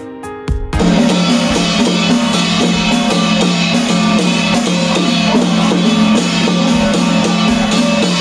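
Music: a few sparse plucked notes, then, under a second in, drums and bass come in with a steady beat that carries on.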